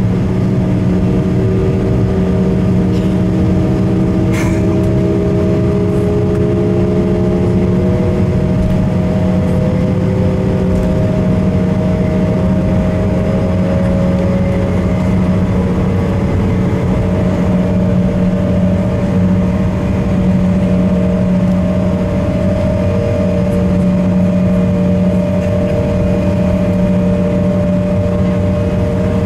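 Embraer E170's twin GE CF34-8E turbofan engines running at taxi power, heard from inside the cabin: a steady drone with a low hum and whining tones. A few of the tones slide slightly in pitch during the first several seconds.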